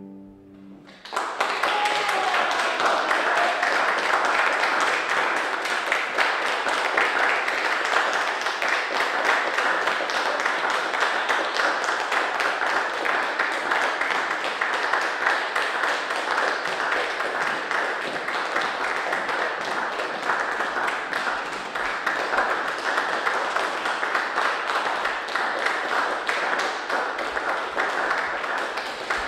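Small audience applauding, starting about a second in and going on steadily. A single voice calls out briefly about two seconds in.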